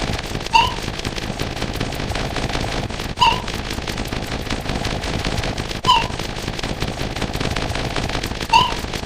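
Looping sound effect: a steady crackling noise with a short, slightly rising chirp repeated four times, evenly spaced about every two and a half seconds.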